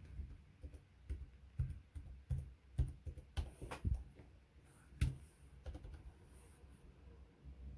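Irregular clicks and light knocks, a dozen or so, loudest in a cluster around the middle with one sharp knock after it.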